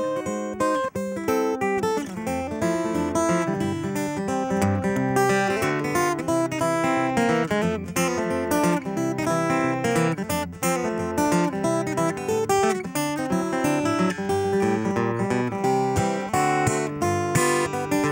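Steel-string acoustic guitar fingerpicked with a thumb pick, played solo as an instrumental, with bass notes under a picked melody.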